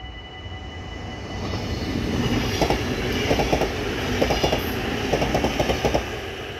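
NS DDZ double-deck electric passenger train passing at speed: a rising rush of wheel and rail noise with several groups of sharp clicks as the wheelsets run over the track, fading near the end.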